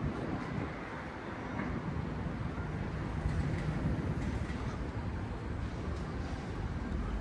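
Steady low rumble of outdoor city ambience, with a faint low hum about three seconds in.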